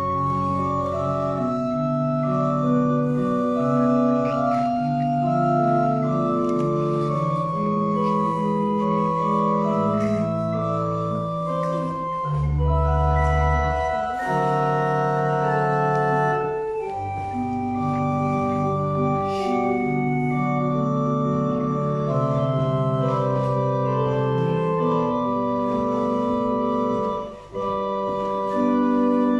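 Church organ playing slow, held chords over deep pedal notes, with a brief break between phrases near the end.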